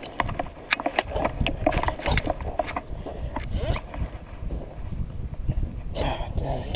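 Footsteps crunching on a gravel shore in an irregular run of knocks and scrapes, with clothing rustling and a landing net being handled and picked up near the end.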